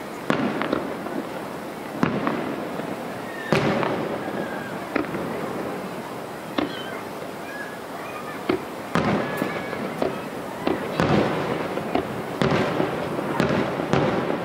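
Aerial firework shells bursting in a string of sharp bangs, about a dozen, some coming in quick pairs, each followed by a rolling echo.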